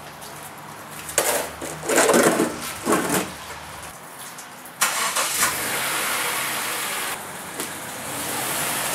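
A 1992 Acura Vigor's 2.5-litre five-cylinder engine is started a little before halfway through and runs, growing louder near the end as the car is driven up onto ramps. Before it starts there are a few knocks as the plastic ramps are set down and the driver gets in.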